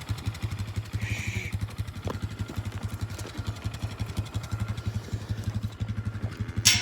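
ATV (four-wheeler) engine idling steadily with a rapid, even low putter. A loud, sudden noise breaks in right at the end.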